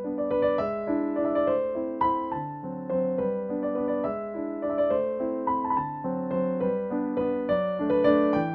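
Piano background music: a melody of single notes over chords, with new notes struck about every half second.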